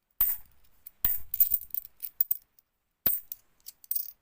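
50p coins clinking and clattering against one another as they are handled and sorted, in three short bursts of sharp metallic clinks.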